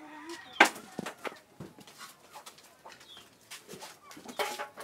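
Scattered sharp knocks and clatters, the loudest about half a second in and another cluster near the end, with birds chirping in the background.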